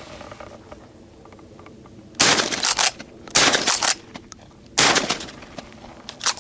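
Three shotgun shots at doves, the first two about a second apart and the third about a second and a half later, each with a short trailing echo. Two of them brought down birds, a double.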